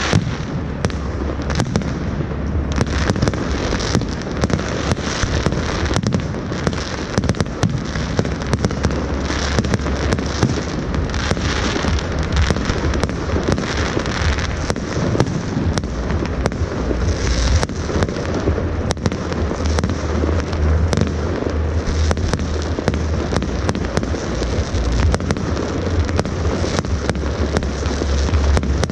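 New Year's Eve fireworks display: many sharp bangs and crackles in quick, unbroken succession over a steady low rumble.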